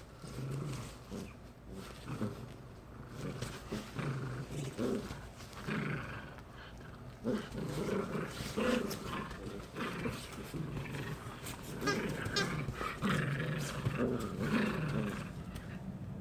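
Poodles growling in play during a tug-of-war game: a long run of short, low growls, one after another.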